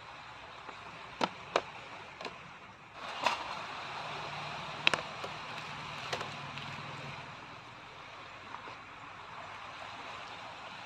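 A few sharp clicks and taps of objects handled on a camp table, with a plastic bag being handled, over a steady wash of background noise. The clicks are scattered through the first half and the loudest comes about five seconds in.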